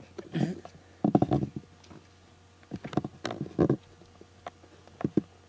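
Kitten bumping and rubbing against the camera right at the microphone: a handful of short, loud, low thumps and scuffles with quiet between them.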